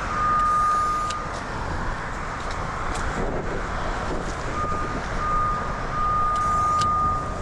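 Cable locator receiver sounding a steady, single high beep tone as it picks up the transmitter's signal on the buried coax cable being traced. The tone lasts about a second, drops out, then comes back in broken stretches that lengthen toward the end.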